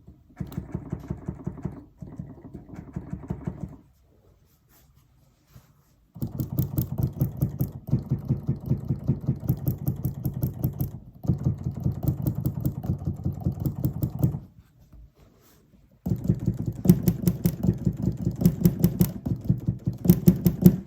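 Keys of a Native Instruments Komplete Kontrol S88 MK2 keybed struck over and over in rapid runs, each press giving a mechanical click, with two short pauses. On this new unit the clicks are loud enough to feel wrong while playing: a faulty, noisy keybed.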